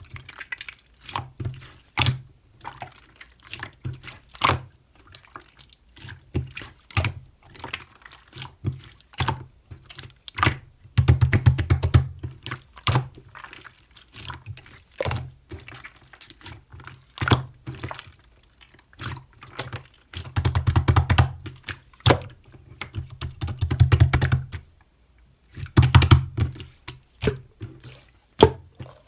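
Clear slime being squeezed, poked and stretched by hand, making wet clicking and popping sounds, with denser runs of crackling pops several times.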